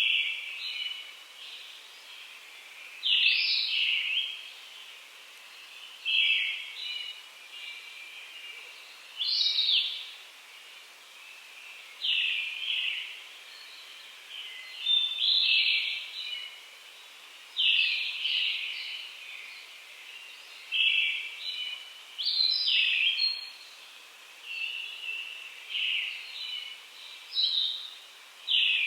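Wild songbirds singing short, loud phrases, one every two to three seconds, each opening with a sharp high note that runs into a fast trill. A low steady hiss lies underneath.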